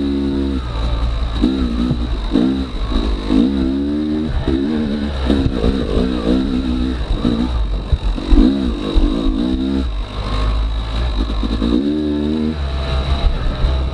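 Yamaha YZ250X two-stroke dirt bike engine being ridden on a trail, revving up and falling back in about eight short throttle bursts, with a steady low rumble underneath.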